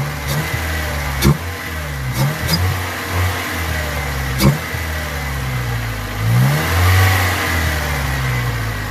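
Honda Civic's 1.6-litre four-cylinder engine, fitted with a short ram intake and aftermarket exhaust, revved in a few short blips from idle and then once longer near the end, with the intake sucking air in. Two sharp knocks cut in, one about a second in and one midway.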